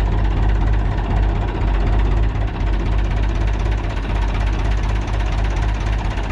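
Fordson Power Major tractor's four-cylinder direct-injection diesel engine idling steadily.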